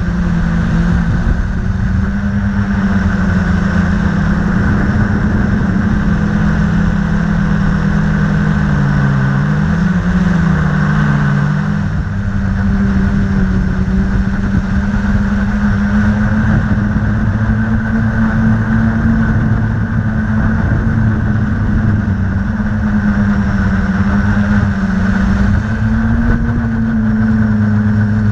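Multirotor drone's motors and propellers humming steadily, picked up by the camera on board. Several close pitches drift up and down as the motors change speed.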